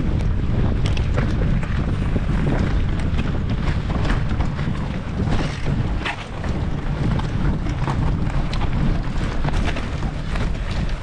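Wind buffeting the microphone of a camera on a mountain bike riding a dirt forest trail, over a steady rumble of tyres on the ground, with scattered knocks and rattles as the bike goes over rough terrain.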